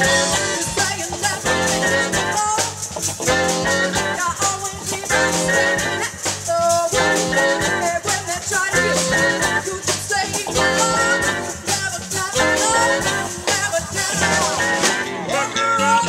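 Live band playing: drum kit, electric guitar, keyboard and saxophone, with a woman singing into a microphone.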